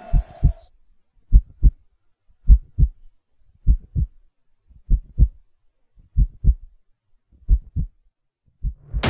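Slow heartbeat sound effect: pairs of short, low thumps in a lub-dub rhythm, a little under one beat a second, with near silence between beats. Loud music cuts in at the very end.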